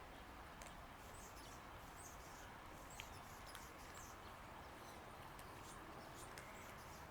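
Near silence: quiet outdoor background with a few faint, short, high chirps of small birds and a couple of small clicks.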